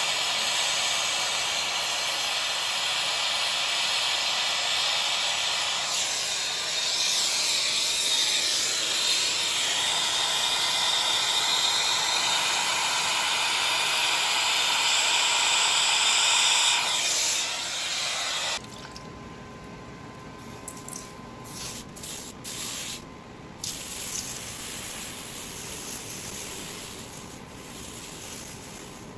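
Gas soldering torch flame hissing steadily while heating 3-inch copper pipe for soldering, then shut off abruptly about 18 seconds in, leaving a quieter background with a few faint clicks and knocks.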